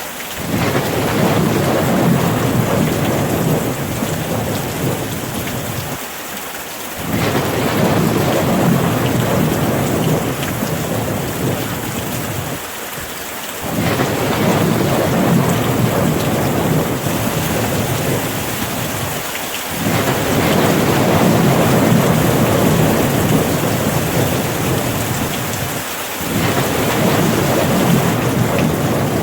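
Steady rain with a low rumble that swells and eases about every six and a half seconds, the pattern repeating evenly like a loop.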